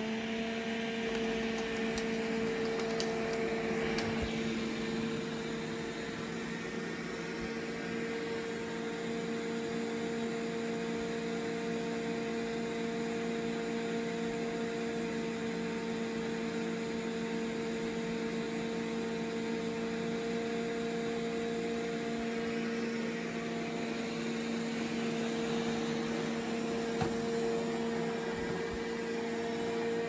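Roborock S5 robot vacuum running a spot clean on carpet, its suction fan and brushes making a steady whirring hum, believed to be on medium suction. A few faint ticks come in the first few seconds.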